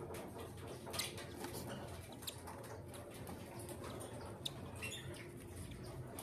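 Faint high squeaky peeps of a newly hatched cockatiel chick, with scattered soft clicks and rustles.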